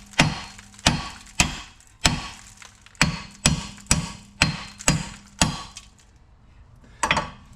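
Hammer blows on a rusted, seized rear wheel hub assembly: about ten sharp strikes, roughly two a second, each with a short ring, then a pause and one more strike near the end. The hub is pretty well seized on and does not come free.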